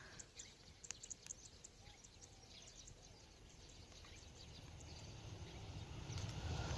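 High-speed train approaching from a distance: a faint low rumble and hiss that grows steadily louder through the second half.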